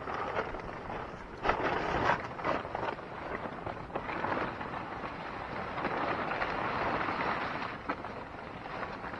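Nylon tent fabric rustling and crinkling as the tent is handled and moved. The noise is irregular, with a few sharper crackles in the first couple of seconds.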